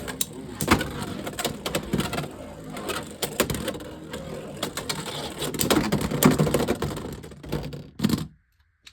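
Two Beyblade X spinning tops rattling and grinding in a plastic stadium, with repeated sharp clicks as they strike each other and the walls. Near the end both wind down and stop at about the same time, and the sound dies away to silence.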